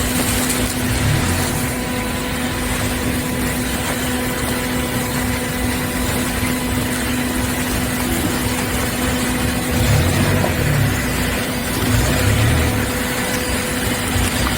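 Hydraulic baler running: a steady hum from its motor and hydraulic pump over machine noise, with a low rumble that swells a few times.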